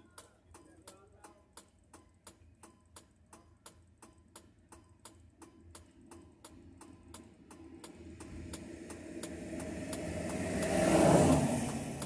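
A vehicle's hazard-light flasher ticking steadily, about three clicks a second. A vehicle passes on the highway, its tire and engine noise swelling to the loudest point near the end and then fading.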